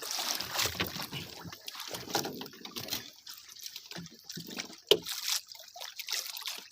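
Water sloshing and trickling, in uneven splashes, with a single sharp knock about five seconds in.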